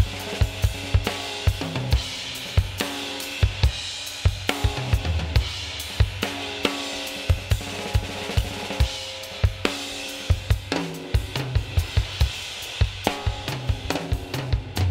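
Multitrack acoustic drum kit recording playing a groove of kick, snare, toms, hi-hat and cymbals, run hard through a bus compressor.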